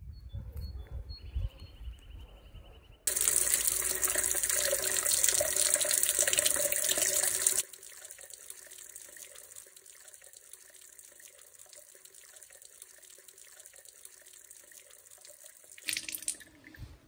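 Running water splashing loudly for about four and a half seconds, then cutting off abruptly into a much fainter steady hiss. A low rumble comes before it.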